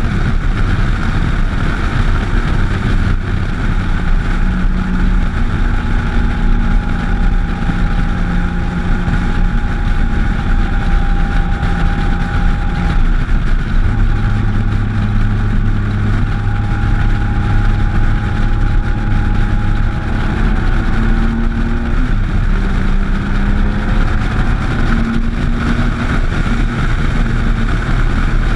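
Motorcycle engine running steadily at road speed, heard from the bike itself, its pitch holding and then stepping to a new level now and then as the revs change, over a constant rush of wind and road noise.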